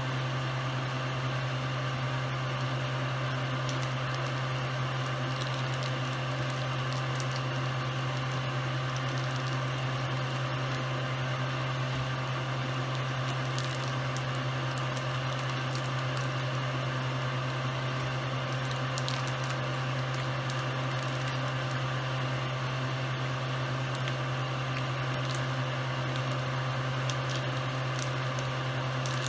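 A steady low electrical hum from a running kitchen appliance, with scattered faint crinkles and ticks of the plastic wrap on a ground beef package being handled.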